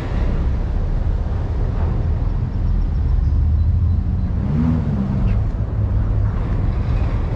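Prestige 590S motor yacht's engines running at slow manoeuvring speed: a steady low rumble with a rushing hiss over it. A brief low hum rises and falls about four and a half seconds in.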